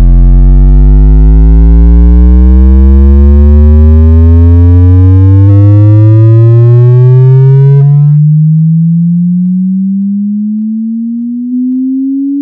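Bass sweep test tone: one pure tone gliding slowly and steadily upward from deep sub-bass into the low range. It is very loud and heavily distorted with many overtones at first, then about eight seconds in it turns clean and quieter while it goes on rising.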